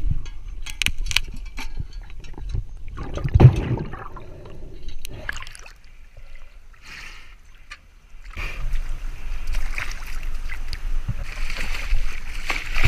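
Water sounds close to a waterproof action camera: scattered knocks and one heavy thump while underwater, then, from about two-thirds of the way through, steady splashing and sloshing as a person wades through shallow river water.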